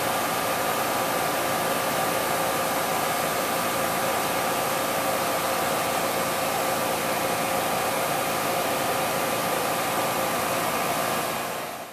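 Rheem 3½-ton R-410A air-conditioning condenser running steadily, nice and quiet: a steady rush of fan air with a low compressor hum and a couple of faint steady tones. The unit is fully charged and cooling normally.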